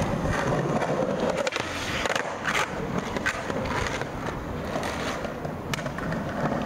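Skateboard wheels rolling over stone paving slabs, with several sharp clacks of the board hitting the ground as a trick is popped and landed. The loudest clacks come about two and a half and three seconds in, with another near the end.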